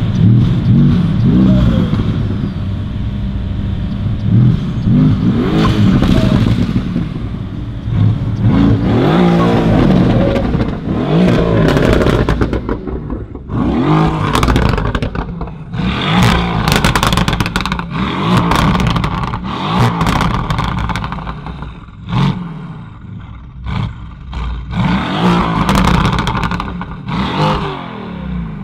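Mercedes-AMG GT R's twin-turbo V8 with a decatted Fi valved exhaust being revved repeatedly while stationary, each rev rising and falling, with pops and crackles on the overrun between revs, thickest in the middle of the stretch.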